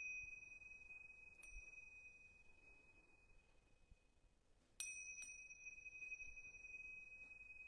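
A small high-pitched bell or chime, struck lightly about a second and a half in and then twice in quick succession near the five-second mark, each strike left to ring on in one long, slowly fading tone.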